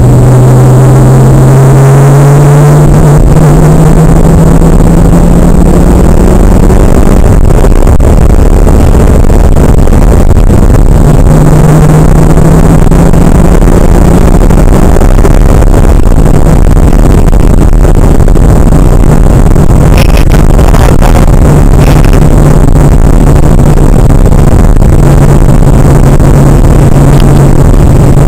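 Turbocharged 3.4-litre flat-six of a Porsche 911 running under way, heard from inside the cabin. The engine note rises over the first several seconds as the car accelerates, then holds fairly steady at cruise over road and wind noise. The recording is very loud throughout.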